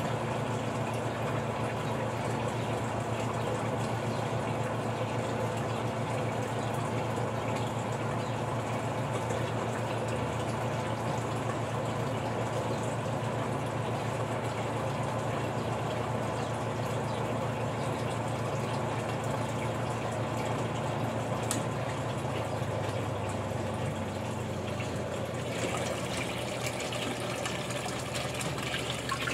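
Praxis twin-tub washing machine's wash tub agitating a load with the lid closed: a steady electric motor hum under churning, sloshing water. About three-quarters through, the hum changes. Near the end the sloshing water comes through brighter as the lid is opened.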